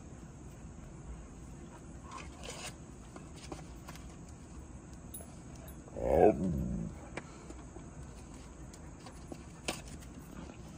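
A husky giving one loud vocal call, under a second long, that slides down in pitch, about six seconds in. Around it, only faint background and a few small clicks.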